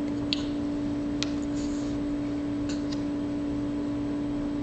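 A steady low hum, with a few short, faint clicks scattered through it.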